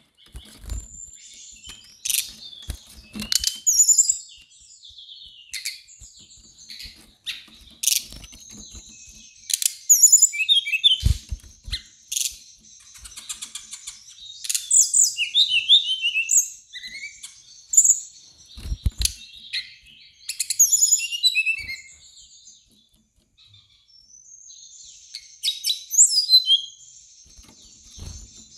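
Brown-chested jungle flycatchers singing: many quick, varied high whistled phrases, with a few sharp taps in between.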